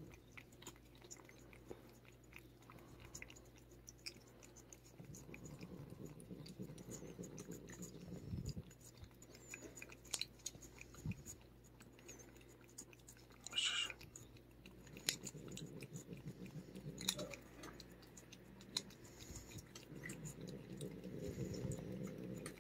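A cat licking paste treat from a squeeze tube held in a hand: faint, quick, irregular wet lapping and tongue clicks, with one brief louder smack about fourteen seconds in.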